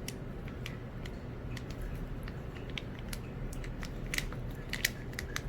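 Samsung 7.5 kg top-load washing machine starting its wash cycle just after start is pressed: a steady low hum with a haze of noise and scattered light clicks.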